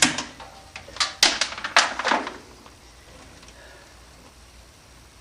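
A sharp snap, then a quick cluster of about five clicks and snaps about a second in: wire cutters snipping wires inside an air conditioner unit.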